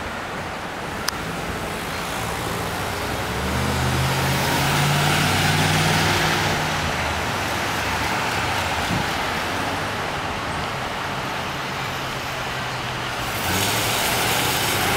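Street traffic: cars driving past close by, their engine hum and tyre noise swelling about four seconds in and then easing off. Another vehicle, a pickup truck, comes up loud near the end. There is a single sharp click about a second in.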